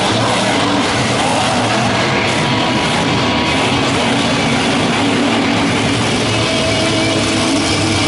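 Monster truck engine running loud and steady, with rock music playing over it.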